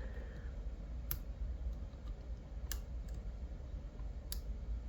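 Three sharp small metallic clicks, about a second and a half apart, with a few fainter ticks, as homemade screw lockpicking tools are handled at a lock, over a steady low hum.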